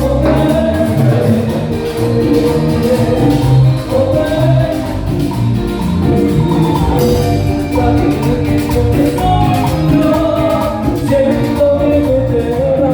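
Live cumbia band playing loudly, with a steady bass and percussion under a melody line.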